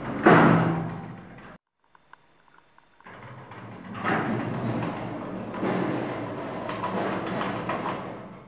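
Lift car's sliding doors shutting with a loud bang about a third of a second in. After a brief pause, the door mechanism runs for about five seconds as the doors slide open again, fading out near the end.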